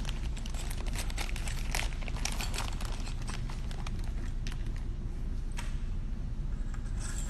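Scattered light clicks and taps from handling, thick over the first few seconds and sparse after, over a steady low hum.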